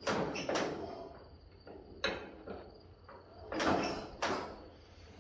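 Irregular knocks and scrapes, a handful of sharp clatters, over a steady high, thin chirring tone.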